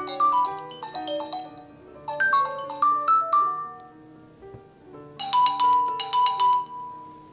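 Preset ringtones previewing through a Nokia G20 smartphone's speaker as they are tapped in the ringtone list. There are three short melodic phrases of quick notes: one at the start, a new one about two seconds in, and a different one about five seconds in that ends on a held high note fading away.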